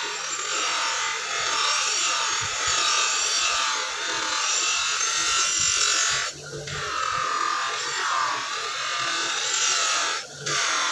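Steel cleaver blade ground against the spinning abrasive wheel of an electric bench grinder: a steady, harsh grinding hiss that breaks off briefly about six seconds in and again near the end, where the blade comes off the wheel.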